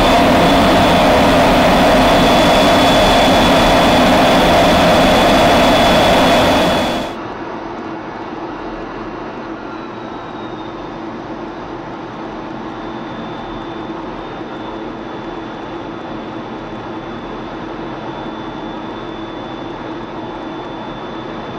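F-16 fighter jet in flight: a loud, steady rush of jet engine noise with a steady high whistle. About seven seconds in it cuts abruptly to a quieter, duller, steady drone of jet noise heard from inside the cockpit.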